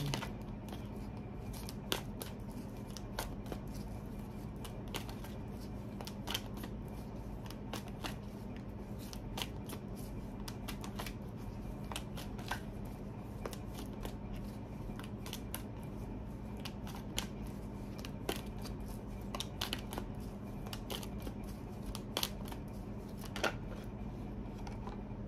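Tarot deck being shuffled by hand: cards sliding and snapping together in sharp, irregular clicks about once or twice a second, over a steady low hum.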